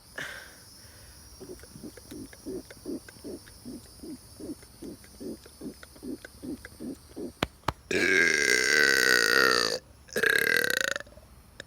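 A man's loud burps: a long one of nearly two seconds, falling in pitch, then a shorter one of about a second. Before them comes a run of short low pulses, about three a second, and two sharp clicks.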